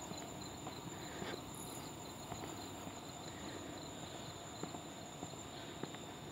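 Crickets and other night insects trilling steadily, with scattered faint ticks through it.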